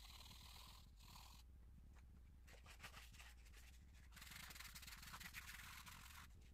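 Faint scratching and rubbing of a charcoal stick on paper as it shades, growing stronger about two-thirds of the way in, over a low steady hum.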